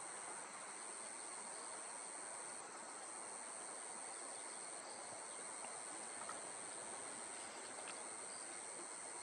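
Insects singing: a steady, unbroken high-pitched buzz, over a faint even outdoor hiss.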